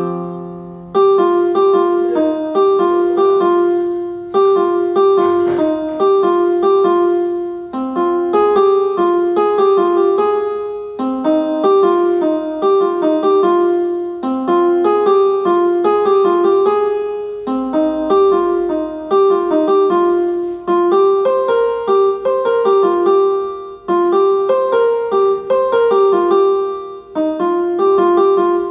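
A phone ringtone melody in a piano-like keyboard tone: a short phrase of quick notes that repeats about every three seconds.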